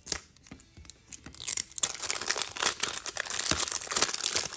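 Plastic wrapping of a Mini Brands toy capsule being crinkled and torn open by hand: a dense crackling that starts about a second in and keeps going.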